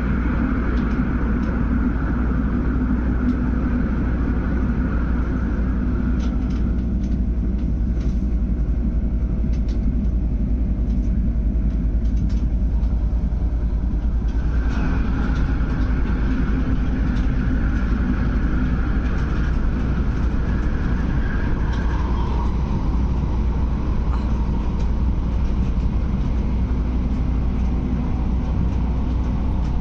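MTR Airport Express train cabin noise while running: a steady low rumble. A high whine fades after a few seconds, comes back about halfway through and drops in pitch later on.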